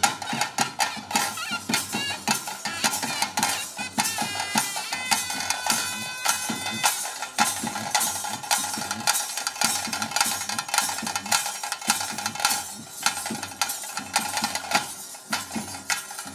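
Traditional ritual music: thaase drums beaten in a fast, continuous rhythm, with a nagaswara reed pipe playing held notes most clearly in the middle.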